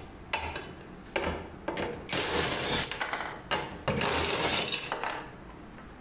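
Metal clinking and rasping of a hand ratchet wrench working the bolts on a washing machine's steel motor and gearbox bracket. A few sharp clinks come first, then two longer rasping stretches near the middle and toward the end.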